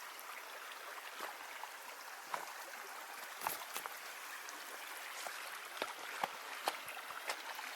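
Creek water running steadily over its bed, an even rushing hiss, with scattered light clicks and ticks through it.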